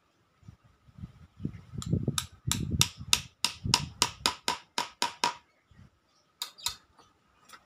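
Rapid metal-on-metal tapping as a nail is struck by hand: about a dozen sharp, ringing taps at roughly three a second, then a pause and three or four more taps near the end.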